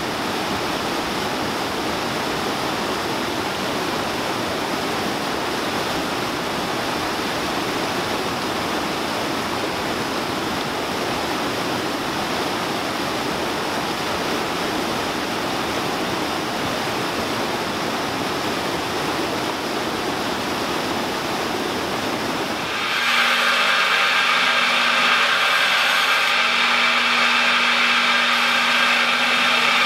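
Water of a rocky mountain stream rushing steadily over boulders. About 23 seconds in it cuts abruptly to a louder belt grinder running, a steady hiss with a steady hum.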